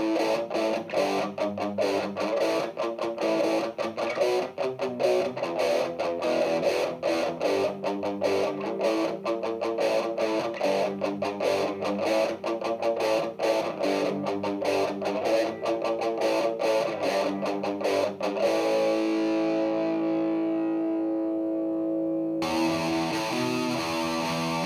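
Electric guitar through an Exar Super Fuzz SF02 fuzz pedal, played as a fast, heavily fuzzed riff of quickly picked notes. About three-quarters of the way through, a chord is struck and left to sustain, and near the end new notes come in with a darker, less trebly tone.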